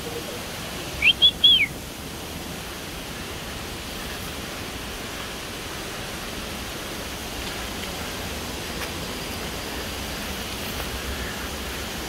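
Steady rushing of flowing water from a mountain stream or waterfall. About a second in, a bird calls: three quick chirps, each rising and falling.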